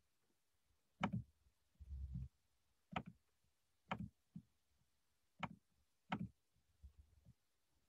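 Faint sharp taps, roughly one a second, with a short low thump about two seconds in.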